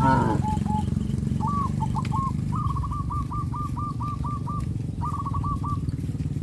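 A bird calling in short, fast trilled phrases, repeated several times, over a small engine running steadily throughout.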